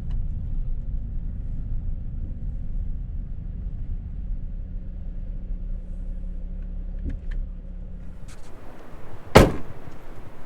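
Vehicle engine idling with a low rumble, shut off about eight seconds in after a few small clicks, followed by one loud door slam about a second later.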